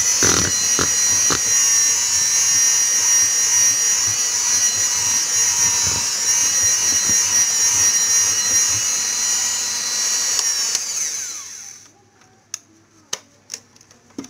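Electric hand mixer running steadily with a high whine, its beaters churning thick butter-based cookie dough in a plastic bowl. About eleven seconds in it is switched off and winds down, followed by a few light clicks.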